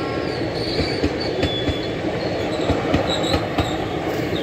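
An Indian Railways passenger train's coaches rolling past close by: a steady, dense rumble of wheels on rail with irregular clicks over the rail joints and short, high squeals from the wheels.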